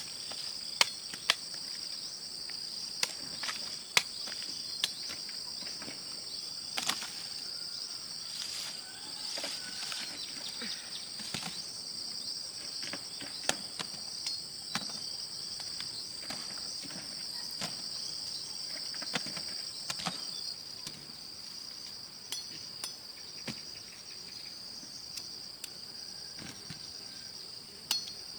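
A steady, high-pitched chorus of insects buzzing throughout. Scattered sharp knocks and taps come through at irregular intervals, most of them in the first half.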